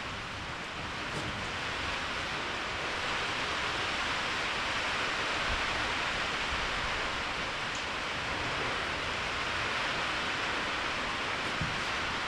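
Steady hiss of rain falling, with a slight swell in level a couple of seconds in.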